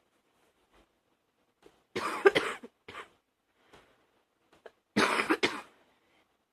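A woman coughing in two short fits, about two seconds in and again about five seconds in. Each fit is a quick run of several coughs, with faint breaths between: a morning cough.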